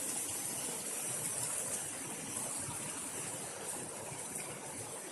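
Waterfall and stream water rushing, a steady even hiss with no distinct splashes.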